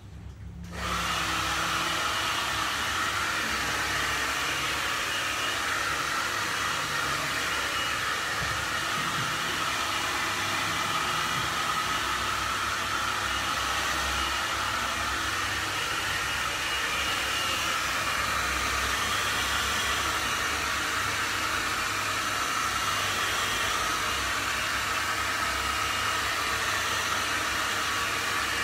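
A hair dryer is switched on about a second in and runs as a steady, loud blowing hiss.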